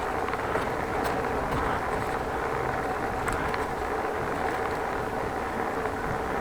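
Steady wind and road noise of a bicycle being ridden along a street, with a faint steady hum and occasional light clicks and rattles.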